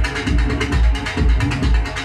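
Electronic music with a steady, repeating deep bass beat and quick ticking percussion above it.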